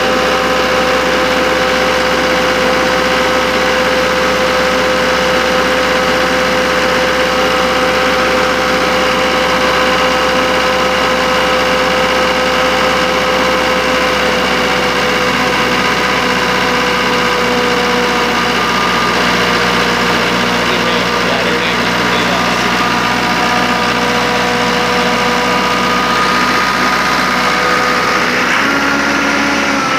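Diesel engine of a fire hydrant pump running steadily, just brought back to life after ten years standing dead. Its note steps slightly higher about a second and a half before the end.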